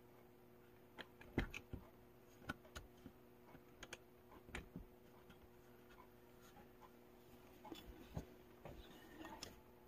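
Faint, scattered clicks and taps of a tripod and its phone clamp being handled and adjusted by hand, over a faint steady hum.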